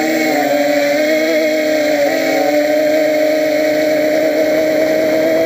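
Quadcopter's electric motors and propellers whirring steadily, a buzzing hum whose pitch wavers and shifts slightly with throttle changes, about at the start and again about two seconds in.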